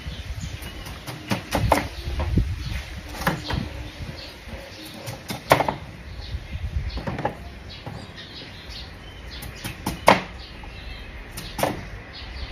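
A kitchen knife cutting through a beetroot and knocking on a wooden cutting board: about seven separate knocks, spaced irregularly a second or more apart, the loudest about halfway through and near the end.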